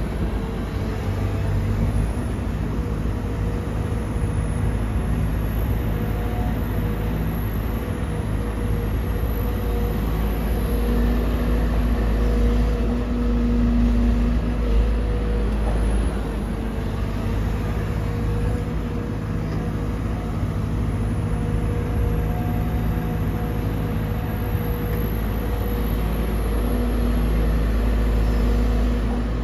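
Sumitomo SH210-6 excavator's diesel engine running steadily under work: a constant low drone with a faint higher whine above it.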